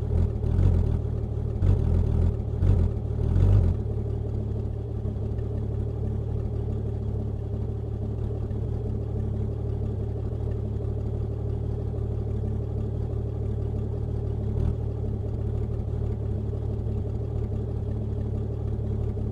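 Car engine recording scrubbed through the AudioMotors plugin in scratch mode: a few uneven surges in the first four seconds, then a steady low engine drone held as a seamless texture.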